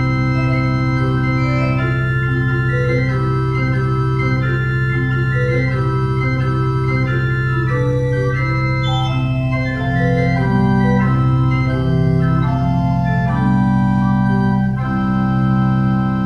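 Pipe organ playing slow, sustained chords over a steady low pedal note held throughout, the chords changing about once a second.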